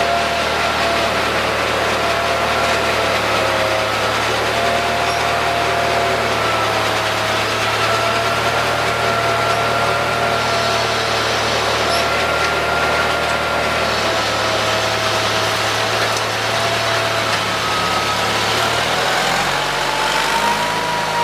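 Sears garden tractor's Onan engine running steadily, then speeding up about nineteen seconds in.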